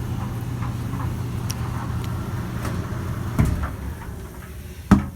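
Panda PAN760SF portable clothes dryer running with a steady low hum and no grating, its replacement motor running smoothly. About three and a half seconds in there is a knock and the running sound drops away, and a sharp click follows near the end.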